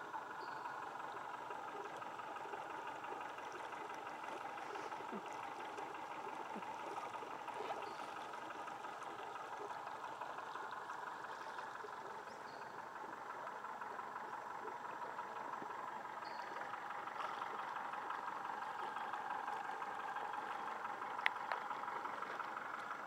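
A boat's outboard motor running steadily, a constant hum. There is a single sharp click near the end.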